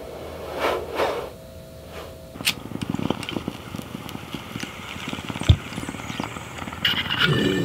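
Smoke blown out in two breaths, then a glass bong bubbling steadily for several seconds as a hit is drawn through it while a lighter burns the bowl, with one sharp click partway through.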